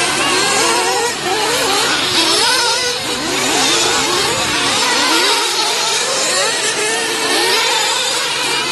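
Several 1/8-scale nitro RC truggies' small two-stroke glow engines revving, overlapping as the trucks accelerate and back off around the dirt track. The pitch keeps rising and falling in a high, buzzing whine.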